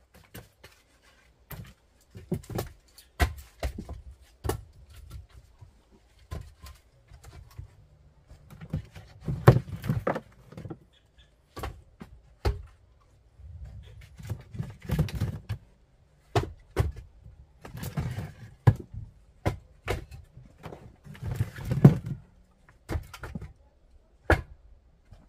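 Split white pine firewood being stacked by hand: irregular wooden knocks and clacks as pieces are set down and strike the pile, with a few heavier thuds.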